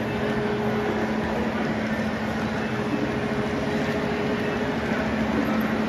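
O scale model freight train rolling past on the layout track: a steady rumble of wheels and cars on the rails, with a steady electrical-sounding hum underneath.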